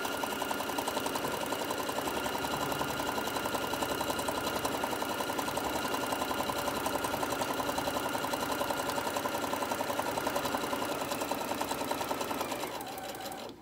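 Electric domestic sewing machine running steadily at even speed, stitching a seam through cotton fabric and batting, with a rapid, regular stitch rhythm. It winds down and stops near the end.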